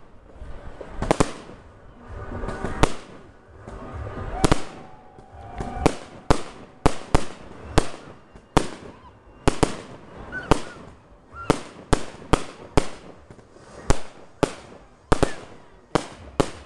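Fireworks display: a run of sharp bangs from bursting shells, about one every second and a half at first, then coming faster, about two a second, from some six seconds in.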